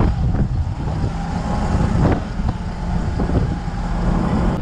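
Fishing boat's engine running steadily, with a few brief knocks over the hum, the clearest about two seconds in.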